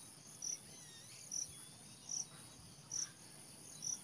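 Insects chirping in the surrounding vegetation: a steady high-pitched buzz with a sharper pulse repeating about once a second.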